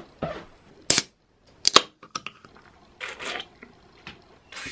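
A drinks can being handled: sharp clicks and a loud crack, then a sip and a short breathy exhale.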